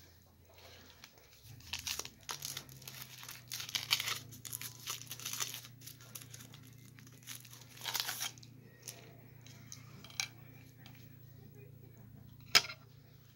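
Plastic rustling and crinkling in bursts as Lego pieces and blue flexible Lego tubes are handled, then one sharp click near the end, over a low steady hum.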